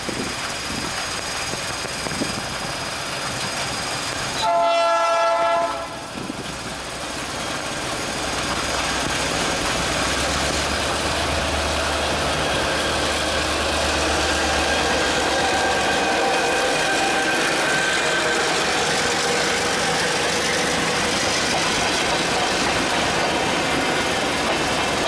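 GM GR-12 diesel locomotive sounds one horn blast of about a second and a half, roughly four seconds in. Its engine then rumbles past, with the coaches rolling by under the steady hiss of heavy rain.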